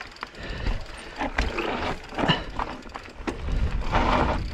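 Mountain bike riding down a rough trail: rattling and clicking from the bike, with several sharp knocks as it rolls over rocks, over a low rumble.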